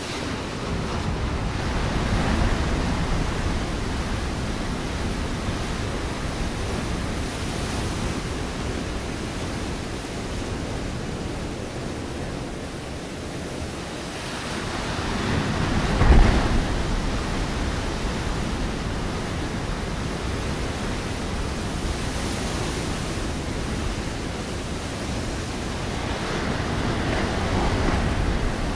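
Ocean waves breaking on a rocky shore over a constant rushing wash of surf. Three waves swell up, about two seconds in, around the middle and near the end, and the middle one breaks hardest with a sharp crash.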